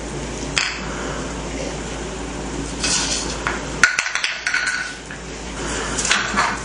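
A few light clicks and clatters of small hard objects, with a quick cluster of them about four seconds in, one of them ringing briefly.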